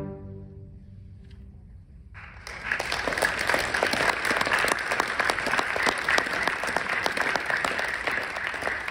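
An orchestra's final chord fades away into the hall's reverberation. After about two seconds of quiet, the audience breaks into steady applause.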